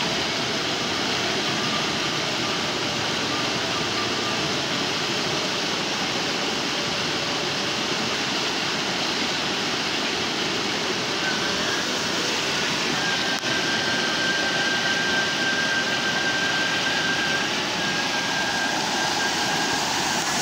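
River rapids rushing steadily.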